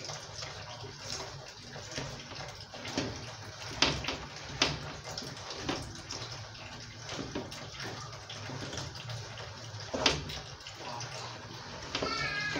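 Wooden spatula stirring wet chopped leafy greens through a large pot of vegetable stew: a wet, sloshing rustle with a few sharp knocks of the spatula against the pot.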